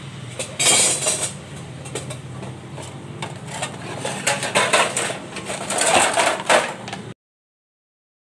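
Dishes and cutlery clattering and clinking irregularly as they are washed by hand, over a steady low hum. The sound cuts off abruptly about a second before the end.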